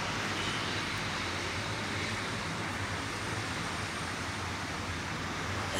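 EMD diesel locomotive of an approaching metre-gauge train, a steady low engine drone under an even rushing background noise.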